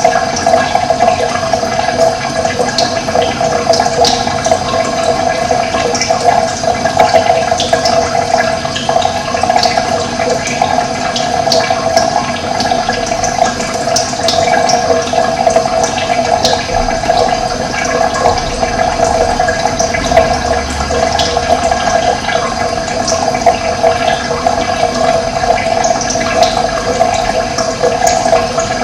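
Running water rushing steadily, with short high bird chirps scattered through it.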